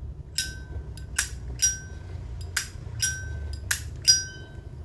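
Zippo Z41 1941 replica lighter's hinged metal lid being flipped open and snapped shut, about four times: a series of sharp metallic clicks, several of them ringing briefly.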